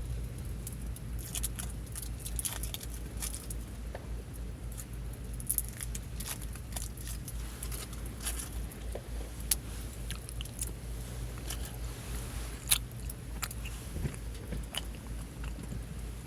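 Wood campfire crackling, with irregular sharp pops scattered at random, over a steady low rumble.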